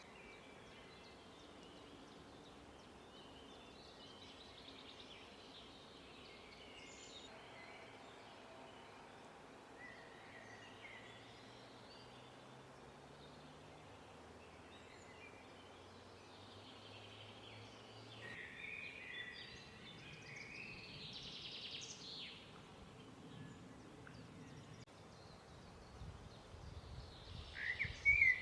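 Faint outdoor ambience: scattered songbirds chirping over a steady low hiss, busier about two-thirds of the way through and again at the end.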